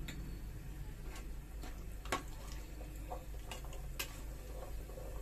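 Scattered light clicks and taps of a utensil against a metal pressure cooker pot, the sharpest a little after two seconds in, over a faint steady low hum.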